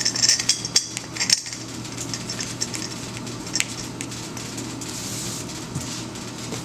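Light metallic clinks and taps of steel tubes and bolts being handled and fitted together, several in the first second and a half and one more a few seconds later, over a steady low hum.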